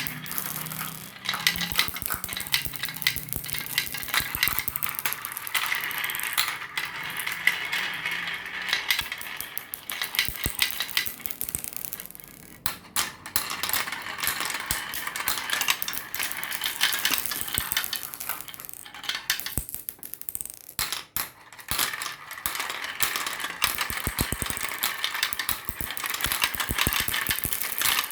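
Marbles rolling and clattering down a marble run, a dense stream of rapid clicks and rattles, thinning briefly about twelve seconds in and again about twenty seconds in.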